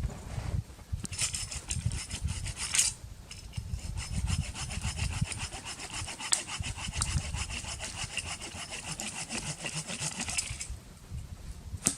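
Hand saw cutting through dead wood in quick, steady strokes, with a short pause near three seconds in; the sawing stops shortly before a single sharp knock near the end.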